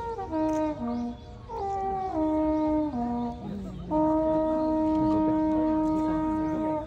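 A horn played for deer calling, summoning the sika deer in to be fed. It plays two short phrases of three falling notes each, then holds one long low note for nearly three seconds.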